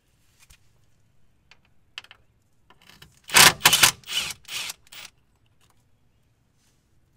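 Cordless impact wrench hammering in several short bursts over about two seconds, loosening a fastener on the rear suspension, with light clicks of the tool and socket before it.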